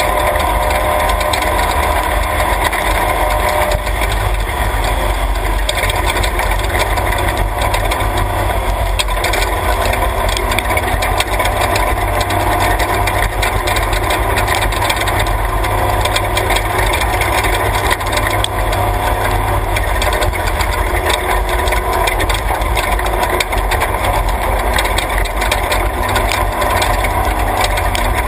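Off-road race truck's engine running steadily under load over a dirt track, heard from on board, with a constant clatter of body and suspension rattles and gravel under the tyres.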